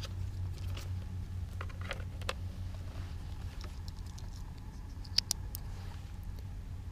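Light clicks and rustles of a bike helmet being put on and adjusted, the sharpest pair of clicks about five seconds in, over a low steady hum.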